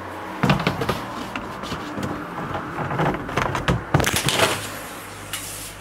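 Plastic knocking, clattering and scraping as the spin-dryer basket of a Sharp semi-automatic washing machine is worked loose, lifted out and handled, in irregular bursts about half a second in and again around three to four and a half seconds, over a low steady hum.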